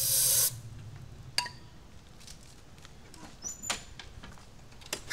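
A short hiss of engine starting fluid sprayed from an aerosol can into a lawnmower engine's air intake, stopping about half a second in. A few light clicks follow.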